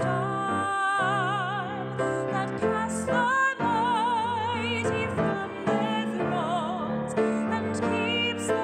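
A woman singing a solo hymn with strong vibrato on long held notes, over a sustained instrumental accompaniment.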